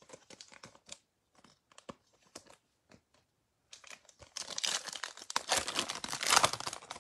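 Scattered light clicks, then from about four seconds in a foil trading-card pack's wrapper crinkling loudly as it is torn open by hand.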